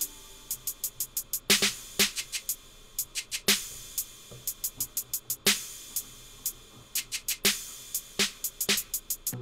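Hip-hop drum loop played on a Native Instruments Maschine, drums alone without the synth: quick runs of hi-hat ticks with a heavier snare hit about every two seconds.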